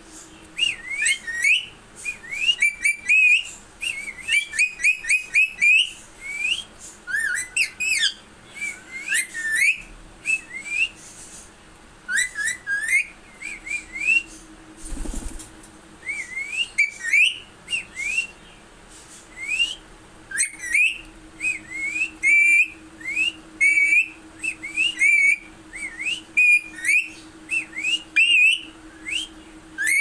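Indian ringneck parakeet whistling and chirping: many short, rising whistled notes in quick runs, with brief pauses between runs.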